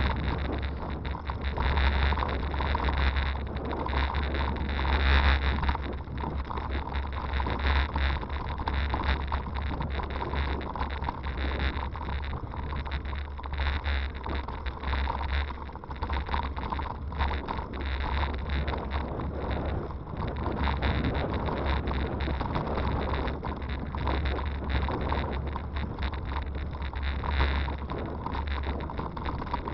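Wind buffeting the microphone of a camera on a moving bicycle, a steady low rumble, over the rattle and small knocks of a hybrid bike riding a rough, rutted dirt towpath.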